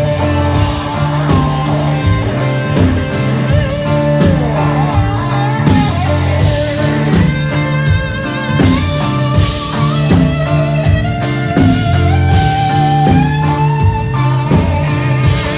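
Live band playing an instrumental passage: a lead guitar line with bent notes over bass and a steady drum beat.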